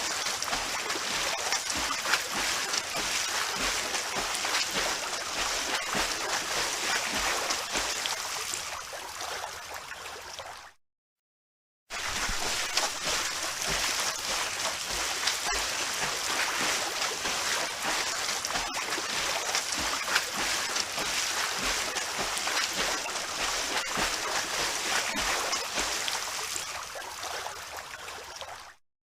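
Swimming in a pool: continuous splashing and sloshing of water with frequent small splashes. It fades out and stops dead for about a second near the middle and again near the end, then starts again.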